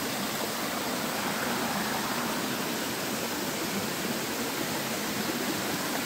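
Small waterfall cascading over rocks in a stream: a steady, even rush of water.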